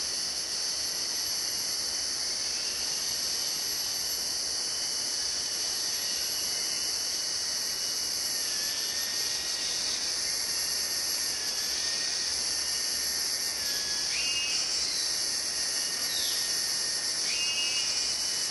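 Steady high-pitched drone of a rainforest insect chorus, with a few faint short chirps in the second half.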